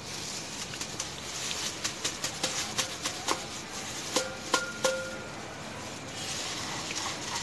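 A steel bowl knocked against the rim of a stainless steel wire-mesh strainer as powder is tipped out: a run of light metal taps, with a couple of knocks about four to five seconds in that ring briefly.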